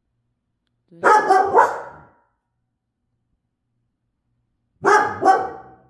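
A dog barking: three quick loud barks about a second in, then two more near the end.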